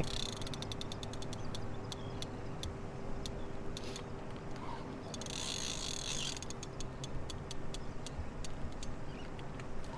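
Spinning reel clicking in irregular runs of sharp ticks while a hooked tarpon pulls hard against the bent rod.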